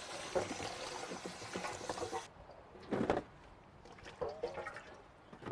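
Tap water running and splashing into a basin while pig intestines are washed in it by hand. The water stops abruptly after about two seconds, and a few brief knocks follow.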